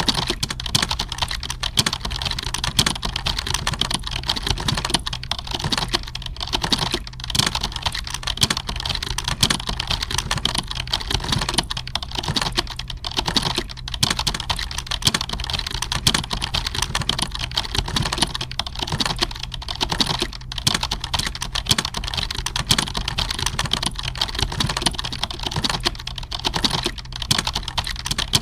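Computer keyboard typing: a dense, unbroken stream of rapid key clicks, over a steady low hum.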